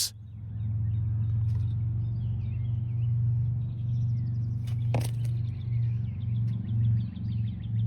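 A vehicle engine idling with a steady low hum, and a sharp click about five seconds in.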